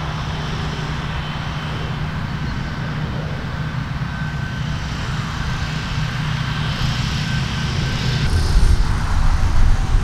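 Steady drone of a distant engine, with gusts of wind rumbling on the microphone in the last couple of seconds.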